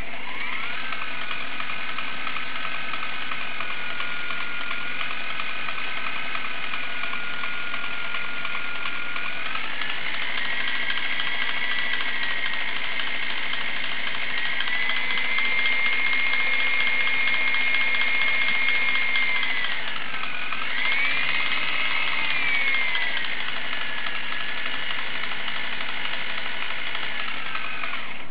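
Align T-REX 250 SE electric RC helicopter's motor and gear whine. It spools up at the start, steps higher twice, dips, swoops up and down, and settles lower as the throttle changes. This is the noise the owner presents as abnormal.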